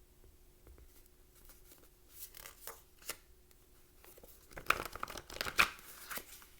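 Tarot cards being handled and shuffled: scattered light rustles and snaps, busiest about four and a half to six seconds in, over a faint steady hum.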